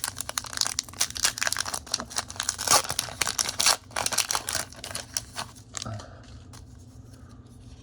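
Foil Pokémon booster pack wrapper crinkling and tearing as it is handled and opened, a dense crackle for about six seconds that then drops to quieter rustling.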